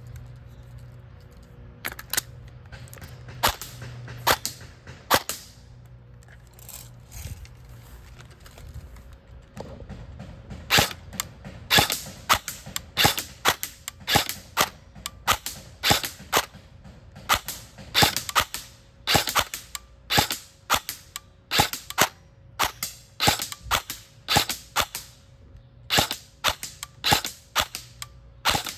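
Electric airsoft rifle firing semi-automatic shots, with the BBs cracking against a wooden board: a few scattered shots at first, then from about ten seconds in a steady fast string of two to three shots a second.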